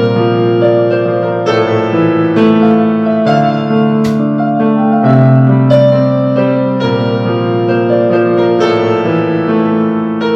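Solo piano playing a melody over held low notes and chords, with the notes struck and left to ring.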